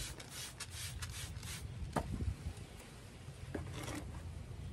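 Hands pressing and rubbing loose potting soil around a plant in a planter: soft scratchy rustling, with a few small clicks about two seconds and three and a half seconds in.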